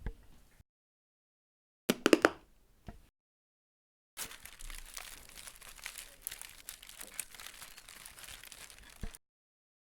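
Foley recording of something being crumpled and crinkled, cut together from separate takes with dead silence between them: a short burst of a few sharp crunches about two seconds in, then about five seconds of steady crackling dotted with small clicks that stops abruptly.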